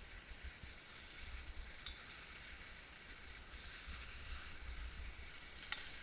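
Skis sliding over snow with a steady hiss while being towed uphill on a T-bar lift, with an uneven low rumble underneath. Two sharp clicks sound, one about two seconds in and a louder one near the end.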